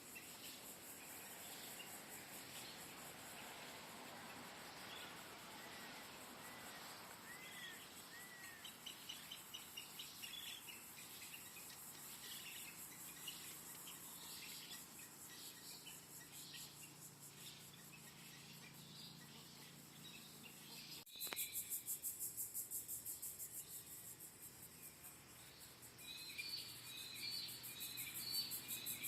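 Insects keep up a steady high-pitched pulsing trill under scattered bird calls and chirps. About 21 seconds in, a sharp click is followed by a louder insect trill, and near the end a bird gives a quick run of repeated chirps.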